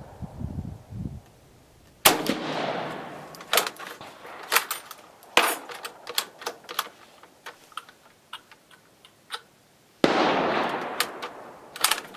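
Carcano M38 short rifle in 6.5mm firing cast-bullet loads: two shots about eight seconds apart, each echoing briefly. Between the shots and after the second come sharp metallic clicks as the bolt is worked.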